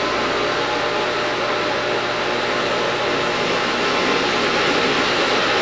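Food processor motor running steadily, puréeing chickpeas and broth into hummus.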